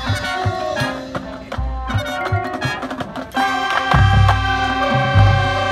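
Marching band playing: pitched percussion plays short struck notes over low drum hits. About three and a half seconds in, the winds come in with a held chord over heavy low drum hits.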